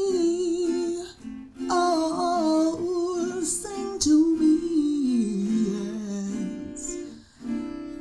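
Acoustic guitar accompanying a woman's sung vocal, which holds and bends notes without clear words, with short breaks about a second in and near the end.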